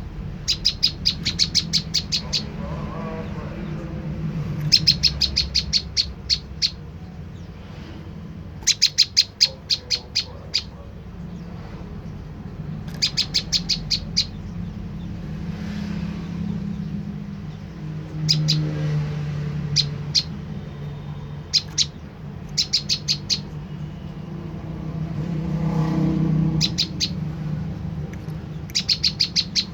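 Prenjak lumut singing: bursts of rapid, sharp, high chipping notes, each burst lasting a second or two and repeated every few seconds, over a steady low hum.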